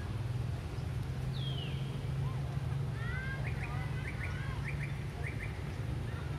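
High-pitched chirping calls: a single falling whistle about a second in, then a quick run of short rising chirps in the middle, over a steady low hum.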